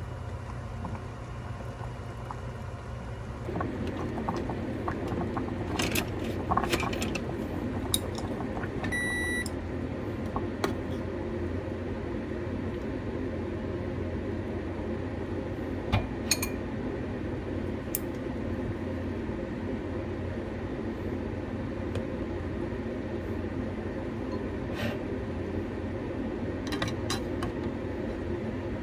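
Kitchen sounds: a steady appliance hum comes on a few seconds in, one short electronic beep follows, and scattered clinks and knocks of dishes or utensils are heard.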